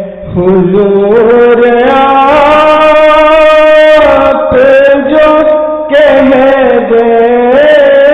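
A solo voice singing an Urdu naat, a devotional poem in praise of the Prophet, drawing out long, wavering melismatic notes with brief pauses between phrases.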